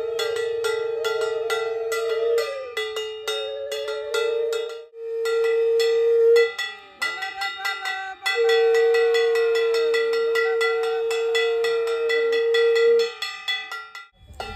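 Small handheld brass gong struck rapidly with a stick, about five ringing strikes a second. Under it a wind instrument holds one long steady note that breaks off a couple of times, with faint voices behind.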